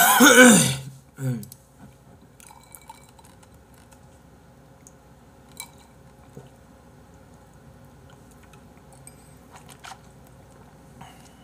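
A loud, throaty vocal noise from a man who is full after eating, in the first second, with a shorter one just after. Then quiet sipping of a drink through a straw from a glass, with scattered small clicks.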